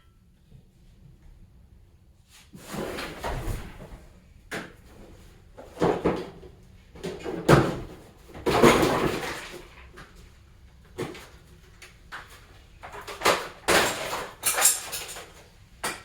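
A string of knocks, bangs and scraping clatter from objects being handled and set down, in separate bursts of a second or so each, with a few sharp knocks among them.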